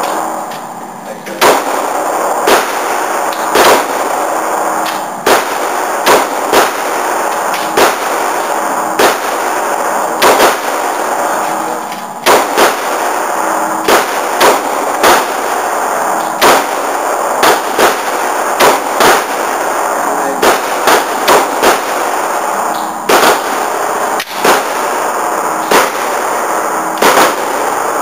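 Glock 23 pistol fired over and over at an indoor range: about forty sharp shots at an uneven pace, some in quick pairs, with a steady background noise between them.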